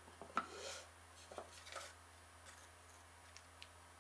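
A cherry burl lid being slid open in its grooves on a small thermally modified ash box: a few light wooden taps and soft rubbing in the first two seconds, then two faint ticks near the end.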